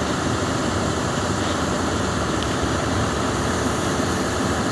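Diesel engine of a Kobelco SK380 crawler excavator running steadily.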